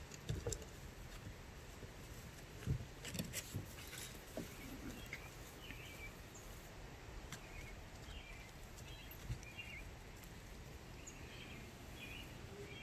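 Miniature schnauzer puppies scuffling and rustling in dirt and leaves, with a few sharp clicks in the first few seconds. Faint, short bird chirps come now and then through the second half, over a quiet outdoor background.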